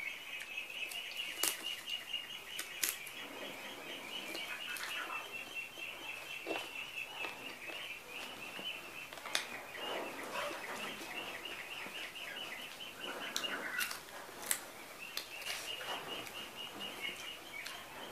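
Birds chirping in a fast, steady high series that fades out around the middle and comes back near the end. Scattered soft clicks and rustles come from fingers picking rice and chicken off a banana leaf.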